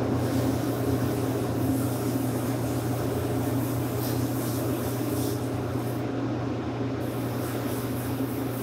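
Steady hum of an electric shoe-repair workshop machine running, with a few faint taps from hand work.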